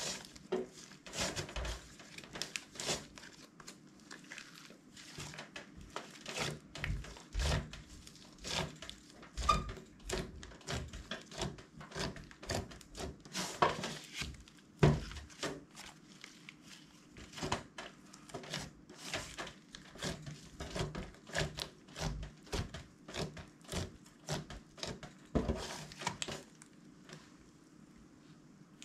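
Large lump of mixed slime being squeezed, folded and stretched by hand, giving a quick, irregular run of sticky clicks and pops. The clicking thins out near the end as the slime is let go.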